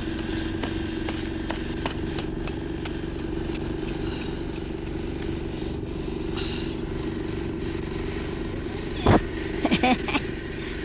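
A steady mechanical hum that holds one pitch throughout, with a single loud knock about nine seconds in, followed by a few short clattering sounds.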